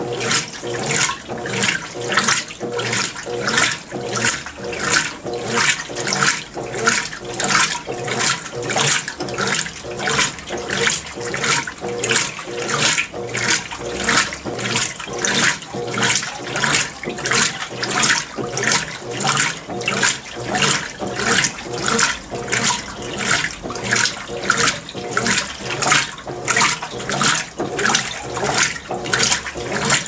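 Consul CWL16AB top-load washing machine agitating its load in water, probably in the rinse just before draining. It makes an even swishing churn that swells about three times every two seconds as the agitator turns back and forth.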